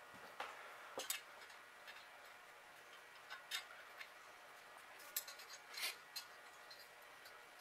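Faint, scattered light metallic clicks and ticks of small nuts being picked up and fitted onto the studs on top of a cast-iron Chevrolet manifold.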